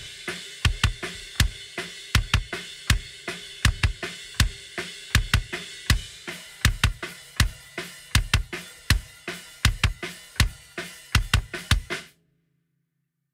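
Kick drum played in a steady groove, heard through a Rode PodMic placed inside the bass drum, soloed and processed; the snare and cymbals bleed through. The playing stops about twelve seconds in.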